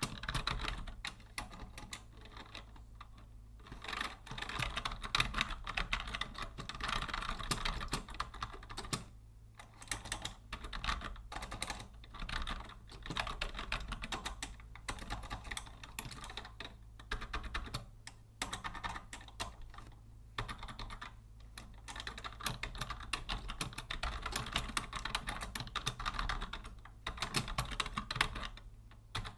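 Rapid typing on a vintage Logitech Deluxe 104 wired keyboard: fast runs of key clicks broken by short pauses, over a faint steady low hum.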